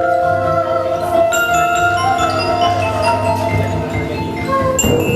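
Instrumental music on tuned mallet percussion: struck bars ringing on in long overlapping tones over a low pulsing bass, with a sharp struck accent near the end.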